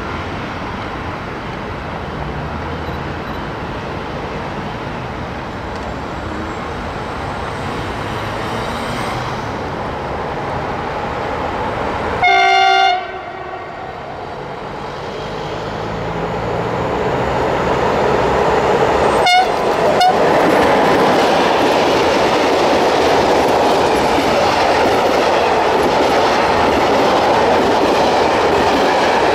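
Loaded freight train hauled by an HŽ Cargo class 1141 electric locomotive, its wheels rumbling on the rails and growing louder as it draws near. About twelve seconds in, the locomotive gives one short horn blast, and after two sharp clicks a few seconds later the loud rumble of the heavy wagons rolling by takes over.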